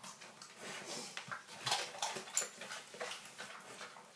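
English bull terrier sniffing and snuffling at the floor: short, irregular, quiet nasal noises.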